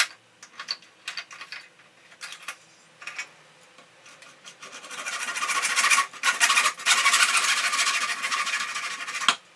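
Hand saw cutting through plastic electrician's conduit held in a vise. A few light clicks and knocks come first, then from about four and a half seconds in a steady run of rasping back-and-forth saw strokes, which stops abruptly just before the end.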